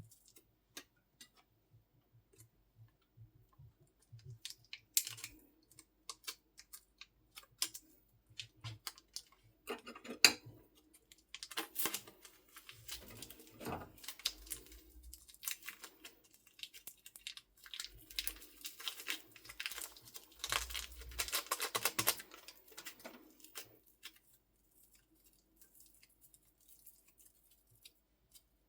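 Slime being kneaded and mixed with soft clay by hand: sticky crackling, clicking and popping, sparse at first, thick and busy through the middle, thinning out near the end.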